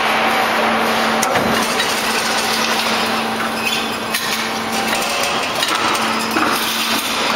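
Machinery of a slit-coil packing line running: a steady mechanical din over a constant low hum, with a couple of short knocks.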